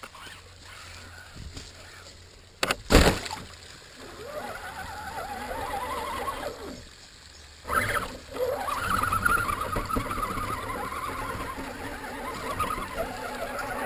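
Electric motor and gears of a radio-controlled scale truck whining, the pitch rising and falling with the throttle as it drives through shallow stream water, with some water noise. A couple of loud knocks come about three seconds in, and another near the middle.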